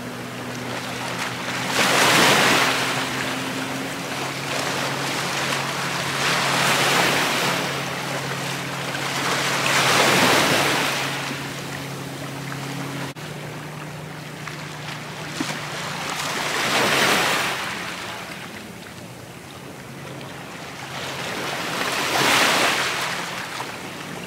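Small sea waves washing and breaking over jetty rocks, swelling about every four to five seconds. A steady low hum runs underneath and shifts in pitch about halfway through.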